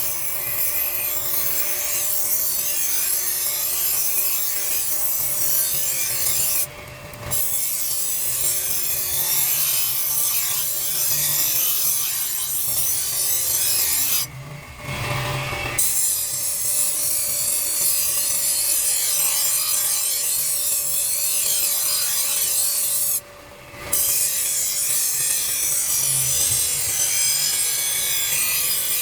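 Continuous abrasive rubbing on the knife, as in rust removal or sanding, broken by three short pauses.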